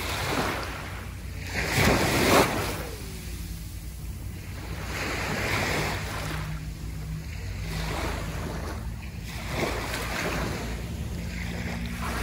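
Small sea waves breaking and washing onto the beach, one surge of surf every two to three seconds; the loudest comes about two seconds in.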